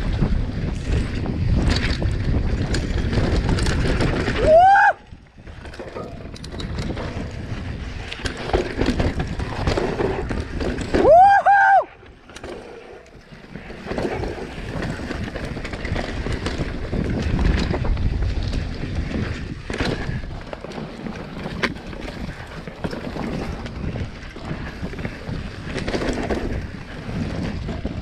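Mountain bike descending a forest dirt trail: steady wind buffeting on the microphone mixed with tyre and trail rumble. There are two short rising-and-falling whoops, about five and eleven seconds in.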